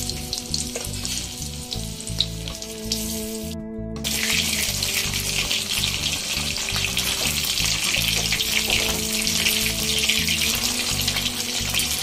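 Battered chicken pakora pieces deep-frying in hot refined oil in a kadai, a steady, dense sizzle. It breaks off for a moment just before four seconds in, then comes back louder.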